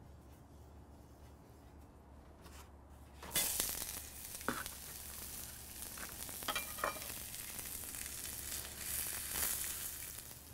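Sliced onions hitting an oiled cast-iron flattop griddle and sizzling in canola oil. The sizzle starts suddenly about three seconds in and carries on steadily, with a few sharp clicks.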